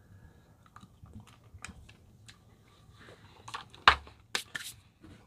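A person eating an ice cream bite: scattered small crunches and clicks of biting and chewing. The loudest is a sharp click about four seconds in, followed by a few more.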